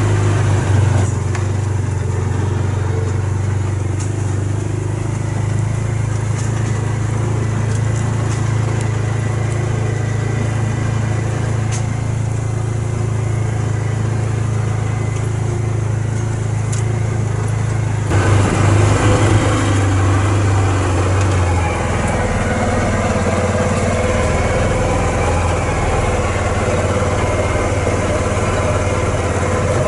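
Side-by-side utility vehicle's engine running steadily with a low hum as it drives across a pasture. A little over halfway through, the running gets louder and rougher.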